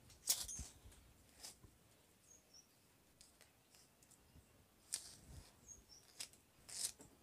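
Faint rustling and scraping of green shade net and rope as a net edge is stitched by hand with a needle, coming in a few short bursts. A bird chirps faintly twice.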